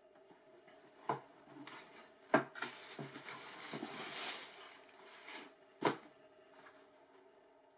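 Cardboard shoe box being handled: a knock as the lid opens, a louder knock, then tissue paper crinkling for a few seconds as a shoe is lifted out. The lid shuts with another sharp knock near the end.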